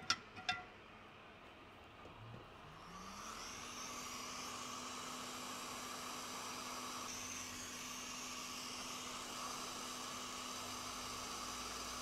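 Hot air rework station starting up: after a couple of clicks its fan spins up, a hum rising in pitch over about a second, then blows steadily with a hiss while it heats the solder to reflow a micro-USB charging port.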